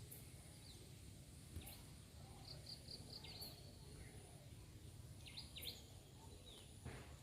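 Faint outdoor ambience: a low steady rumble with scattered chirps of small birds, including a quick run of four or five notes about two and a half seconds in and a pair of sharp falling chirps a few seconds later.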